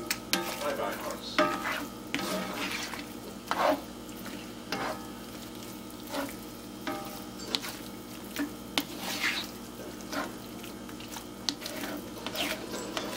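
Scrambled eggs frying in a cast iron skillet: a steady sizzle while a spatula stirs them, with irregular scrapes against the pan bottom about once a second.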